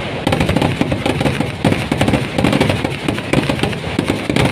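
Vedikettu fireworks: a dense barrage of firecrackers going off in rapid, unbroken succession, bang after bang with no pause.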